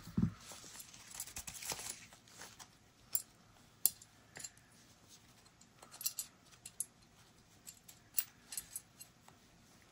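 Faint, scattered small metal clicks and taps as tools and parts work against the revolver's steel frame: the cylinder stop of a Taurus 856 being worked loose and pulled out.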